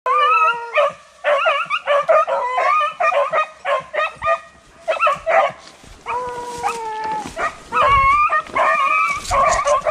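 Several beagles baying in overlapping voices, a run of short yelping calls with a longer drawn-out bawl about six seconds in. This is the cry rabbit hounds give while on a rabbit's scent.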